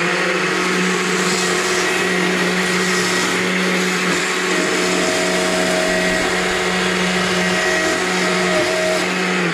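Stihl chainsaw running at a steady, unchanging pitch as its bar tip cuts the outline that defines the wing of a small owl carving.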